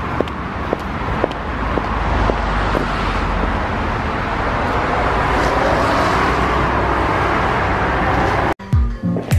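Footsteps on paving stones, about two a second, over road traffic noise that swells and holds as a car goes by. Near the end it cuts abruptly to music.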